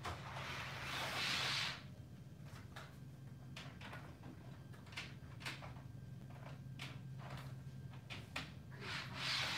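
HO scale model passenger train running around the layout track, its wheels giving irregular light clicks over a steady low hum. Two short hissing rushes, one about a second in and one near the end, are the loudest sounds.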